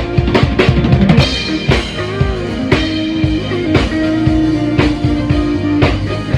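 Rock band playing live at a sound check. A drum kit plays a quick run of hits in the first second, then a steady beat under held electric guitar and bass notes.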